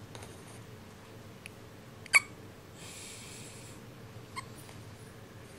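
A dog hiccuping: three short, sharp hiccups, the loudest about two seconds in, with about a second of breathy noise between the second and third.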